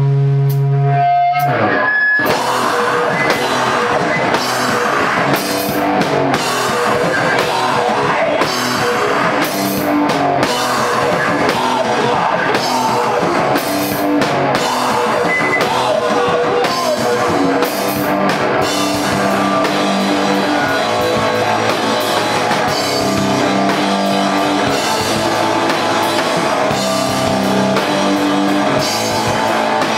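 Live rock band: a held note rings, then about two seconds in the full band comes in, with a drum kit and electric guitar playing a steady rock beat.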